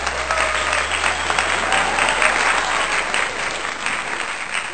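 Crowd applause, a dense steady clapping.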